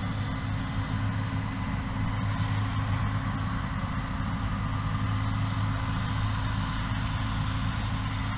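An engine running steadily, a low even hum with no change in speed.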